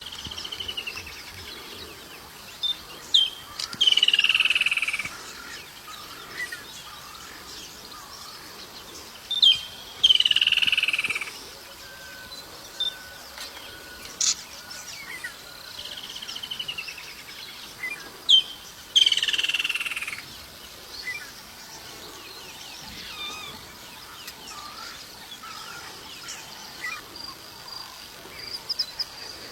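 Wild animal calls. Three times, one or two short sharp notes are followed by a loud buzzy call about a second long that falls slightly in pitch, with smaller chirps in between and a faint steady high trill like an insect near the end.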